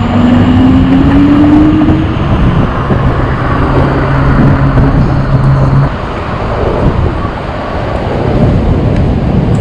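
Road and traffic noise heard from an e-bike moving through city traffic: a steady rush with car engines around. Over the first two seconds a tone rises in pitch, and a steady low hum runs for a few seconds after it.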